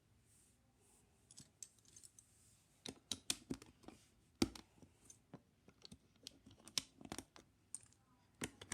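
Small plastic Lego bricks clicking and knocking together as they are picked up and pressed into place, in irregular clicks with one louder click about halfway through.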